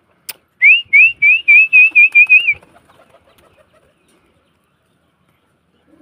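A person whistling a quick run of about nine short notes, each sliding upward, coming faster and flatter toward the end, after a single click.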